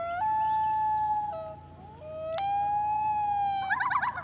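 Common loon wailing: two long, clear calls, the first stepping up to a higher held note, followed near the end by the start of a warbling tremolo call.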